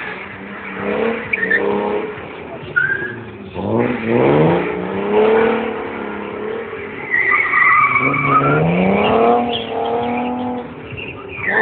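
A car drifting: the engine revs hard in rising sweeps about four and eight seconds in, while the tyres squeal and skid across the pavement.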